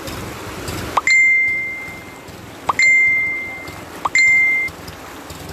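A bicycle bell rung three times: each ring starts with a short upward chirp and then gives a clear ding that fades, the last one shorter.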